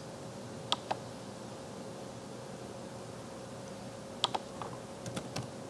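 A few sharp computer-mouse clicks, several in quick pairs, about a second in and again near the end, over a faint steady electrical hum.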